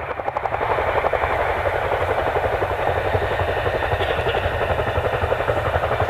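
Boeing CH-47 Chinook tandem-rotor helicopter hovering low, its two rotors beating in a fast, steady chop over the running of its twin turboshaft engines.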